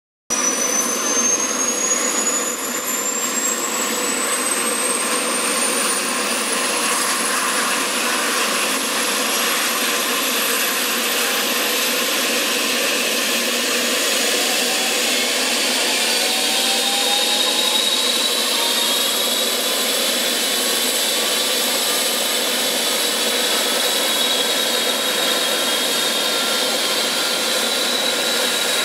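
Eurocopter EC135 air-ambulance helicopter's turbine engines running on the ground: a steady, loud engine and rotor noise, with a high turbine whine that climbs in pitch over the first several seconds and further whining tones rising again later.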